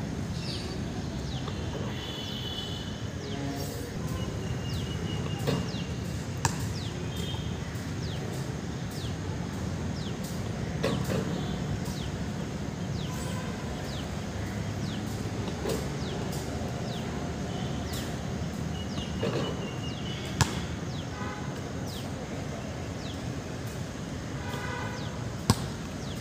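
Basketball thudding on a concrete court and off a backboard, a few sharp knocks spread several seconds apart, over steady outdoor background noise with many short, falling bird chirps.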